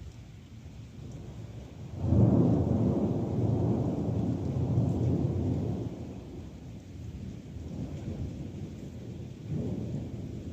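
Thunder from a nearby thunderstorm: a loud rumble sets in about two seconds in and rolls on for about four seconds before fading, with a weaker swell of rumble near the end, over steady rain.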